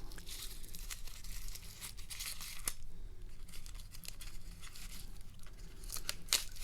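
Packaging being handled and unwrapped: an irregular crinkling, tearing rustle with scattered light clicks, one sharper click about six seconds in.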